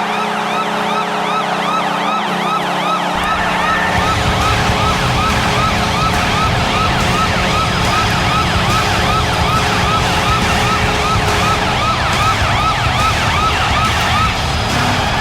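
Washington Capitals arena goal horn sounding a steady low tone under a rapid yelping siren that sweeps about three times a second. Dense noise joins underneath about three seconds in. The horn stops about twelve seconds in while the siren keeps going, and a rising wail starts near the end.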